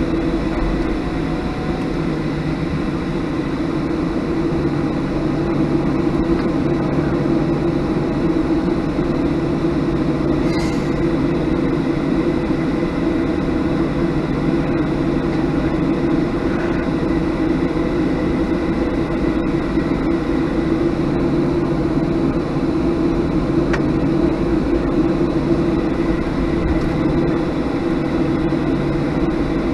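Steady engine drone and air noise inside the cabin of a Boeing 737-700 taxiing, its CFM56-7B engines at idle, with a faint, steady high whine on top.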